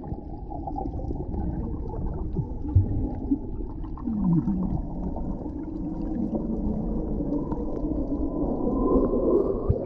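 Muffled underwater sound of seawater heard from below the surface, a steady low rush with only dull low tones and no clear highs. A few brief muffled knocks and sounds from the swimmers' movements come through it.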